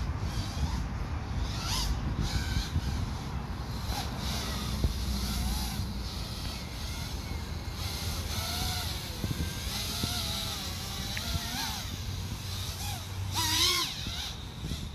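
FPV racing drone's motors whining and rising and falling in pitch as it flies around, over a steady low rumble. A louder wavering sound comes near the end.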